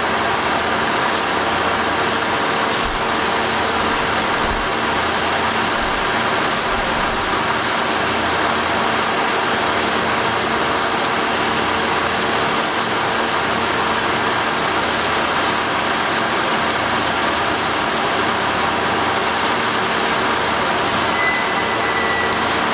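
Railway track maintenance machine running steadily: a loud, even engine drone with a constant hum and a few light clicks, and a brief high tone near the end.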